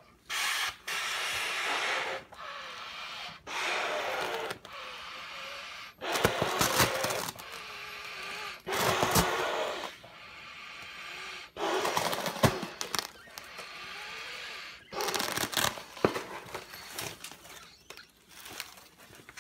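A man blowing hard by mouth into the air bladder of a Hit-Air motorcycle airbag vest: about a dozen long breathy blows, each a second or so, with quick gasping intakes between. The bladder slowly inflates, a sign that the duct-tape patch over its puncture is holding.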